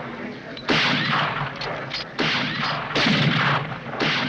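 Rifle shots from a line of shooters in a target match: about four loud reports at uneven intervals, each trailing off over about half a second.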